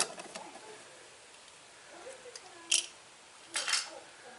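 Washer part being pressed off its retaining tabs and handled: a click at the start, a sharp snap a little past halfway, and a short rattling scrape near the end.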